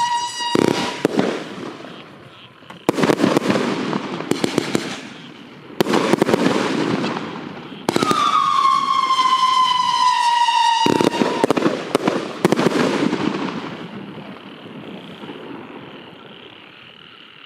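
Coyote Pack consumer fireworks cake firing its howling-tail shots: high falling whistles and a run of sharp bursts with dense crackling from the strobe effects. One whistle sounds at the start and another from about eight to eleven seconds in. The shots die away after about fourteen seconds.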